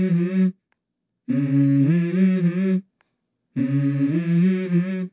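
Unaccompanied hummed vocal phrases opening a song in the workout music. Each phrase lasts about a second and a half and steps between held notes, with a complete silence between phrases.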